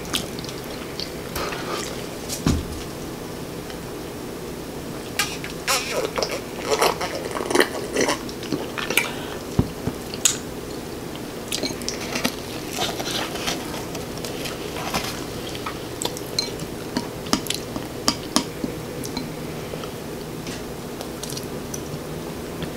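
Scattered close-miked clinks and taps of a spoon against a glass bowl of sauce and of fried chicken being handled on a metal sheet pan, busiest between about five and ten seconds in, over a steady faint hum.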